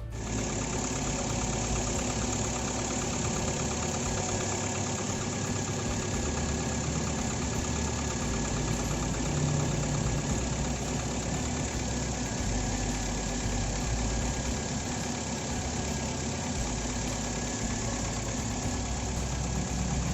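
2004 Toyota Avanza four-cylinder engine idling roughly. It runs harsh and shaky after a cylinder head and camshaft from a VVT-i Avanza were fitted to this non-VVT-i engine.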